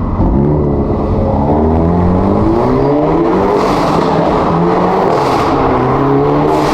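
Hyundai Elantra N's 2.0-litre turbocharged four-cylinder, breathing through a resonator-delete titanium mid-pipe, accelerating hard. The engine pitch climbs, falls back about three seconds in at a gear change, then climbs again.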